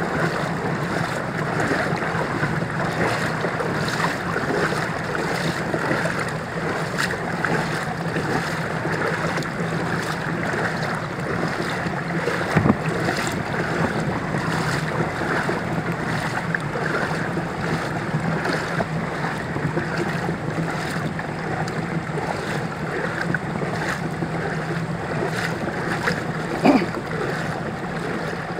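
Floodwater sloshing and splashing as the recorder moves through a flooded street, over a steady low hum. Two brief knocks stand out, one about halfway through and one near the end.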